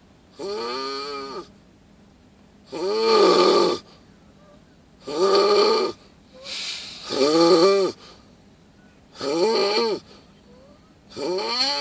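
A bear snoring loudly and rhythmically, a pitched snore about every two seconds that rises and falls in pitch with each breath.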